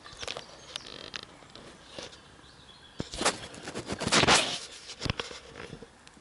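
Handling noise close to the microphone: scattered clicks and knocks with a loud rustle about three to four and a half seconds in, as the camera is moved. A bird chirps faintly about a second in.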